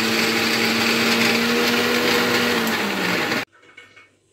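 Electric mixer grinder running at full speed, its steel jar grinding ginger and onion into a curry paste. The motor's hum dips slightly in pitch, then the sound cuts off abruptly about three and a half seconds in.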